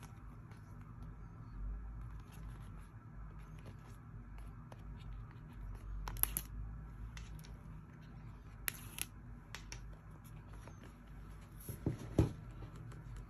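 Product packaging being handled by hand: light scratching and rustling with scattered small clicks, and a few sharper clicks about six, nine and twelve seconds in, over a steady low hum.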